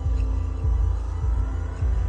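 Background ambient music with a deep bass pulse, about one and a half throbs a second, under sustained drone tones. A rising sweep in pitch comes in about a second in.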